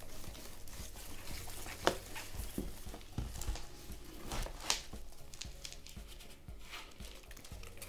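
Thin plastic plant pot being tipped, flexed and wiggled to loosen a root ball, with soil rustling and pattering into a plastic tub and a couple of sharp plastic clicks, about two seconds in and again near five seconds.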